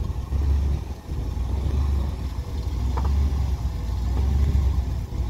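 Small-block V8 engine of a Willys M38A1 Jeep running at low revs as it crawls up a boulder ledge, a deep steady rumble.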